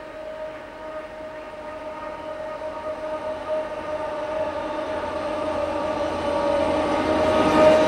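Amtrak F40PH diesel locomotives leading a passenger train approach and grow steadily louder, with a steady droning tone throughout.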